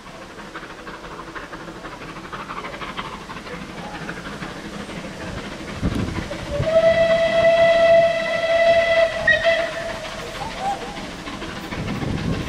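Southern Railway 'Merchant Navy' class steam locomotive No. 35028 'Clan Line' approaching at speed, its sound growing louder. From about six and a half seconds in it gives one long steady whistle blast of about three seconds.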